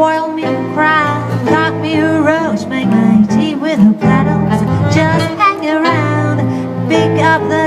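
A female jazz singer improvising a wordless vocal line that slides and jumps in pitch, over a band accompaniment with a low sustained bass line.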